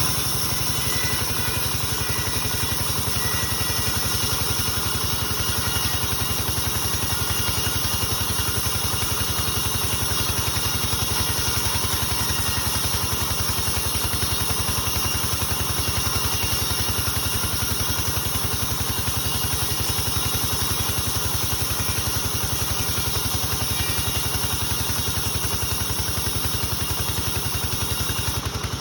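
Sawmill saw machine running steadily, with an even engine-like pulse and no change in pitch or load.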